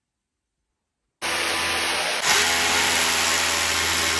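Electric drill running as it bores into a wall. It starts suddenly about a second in and gets louder about a second later.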